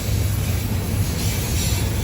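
Intermodal freight train's cars rolling past, a steady low rumble with a hiss of wheel and rail noise.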